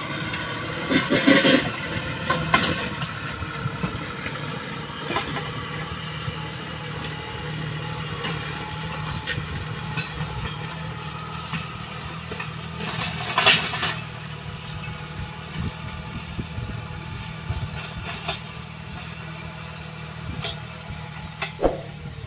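John Deere tractor's diesel engine working steadily under load as it pulls a disc plough through dry ground, with a few brief louder knocks, one about a second in, one about halfway and one near the end.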